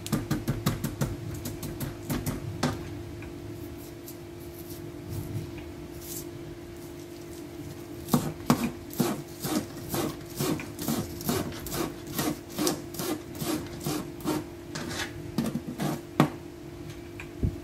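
Kitchen knife chopping green onion on a plastic cutting board. A quick run of cuts comes at first, then scattered cuts, then from about halfway steady chopping at a few strokes a second.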